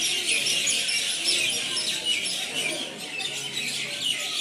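A flock of birds chirping together in a dense, continuous, noisy chorus of overlapping calls.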